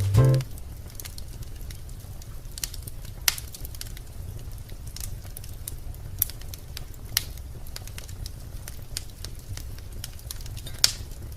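Wood fire crackling in a fireplace: scattered sharp pops and snaps over a low steady rumble, with a loud pop about three seconds in and another near the end. A music track cuts off in the first moment.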